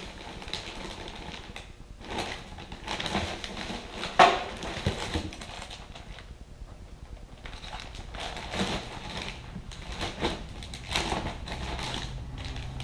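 Crinkling and rustling of brown packing paper and plastic parts bags as parts are unpacked from a cardboard box, with a sharp knock about four seconds in.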